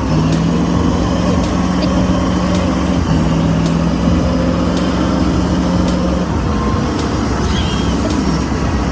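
Engine of a heavy vehicle or machine running steadily and hard, with a constant hum that steps in pitch a couple of times and fades out about six seconds in.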